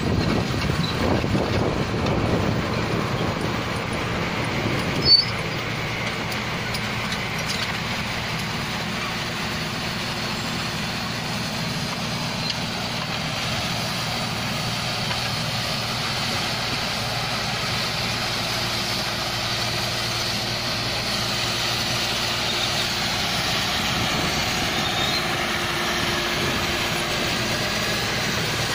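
Rice combine harvester running steadily while cutting paddy, a continuous engine hum. Wind buffets the microphone in the first few seconds, and a brief sharp knock sounds about five seconds in.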